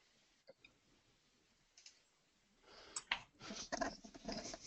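Faint clicks and rustling close to a desk microphone, after a couple of seconds of near silence, during a pause while slides are advanced in a webinar.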